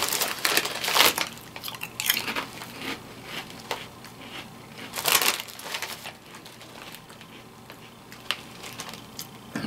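A crinkly bag of kettle-style potato chips rustling as a hand reaches in for chips, then the crunching of chips being chewed, in irregular bursts.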